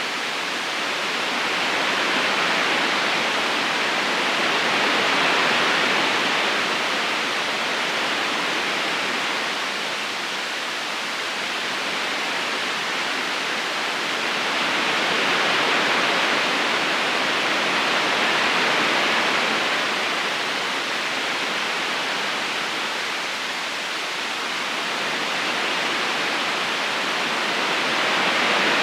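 River current running steadily, a smooth rushing of water that swells gently and eases back every ten seconds or so.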